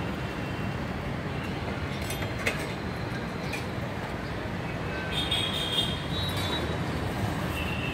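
Steady low rumble of city street background noise, with a brief faint high-pitched tone about five seconds in.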